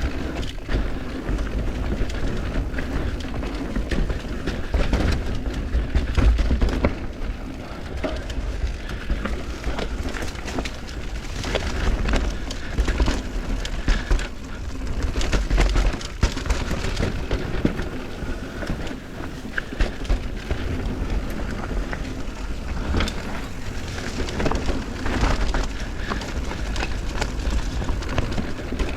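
Mountain bike riding a dirt trail: tyres crunching and crackling over dirt and stones, with the bike rattling over bumps and a steady low rumble.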